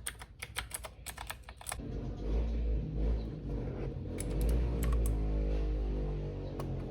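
Clicky blue switches of a Royal Kludge RK61 mechanical keyboard being typed on: a quick flurry of key clicks in the first two seconds, then a few scattered keystrokes. From about two seconds in, a louder low droning sound comes in under the clicks.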